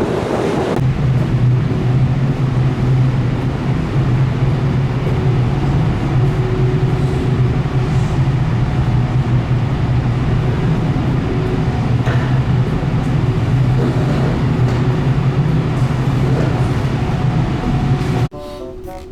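Car ferry under way: a steady low drone from the ship with an even rushing noise over it. About the first second is wind and waves, and music comes in near the end.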